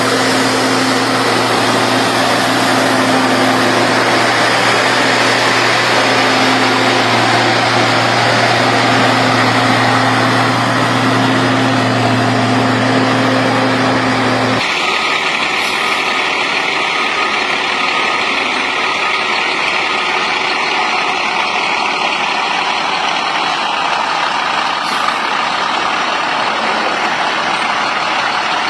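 Heavy road-construction machinery running steadily, a low engine hum with a steady pitch. About halfway through it cuts abruptly to a different, noisier machine sound without the hum.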